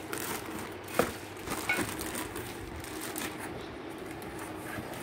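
Cardboard box and plastic wrapping being handled while a new pressure cooker is unpacked: rustling and crinkling, with a sharp knock about a second in and another just under two seconds in.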